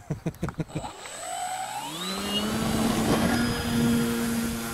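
Model Cessna's motor and propeller spinning up for takeoff, after a few quick ticks in the first second. The pitch rises over about a second, then holds steady with a high whine as the plane climbs away.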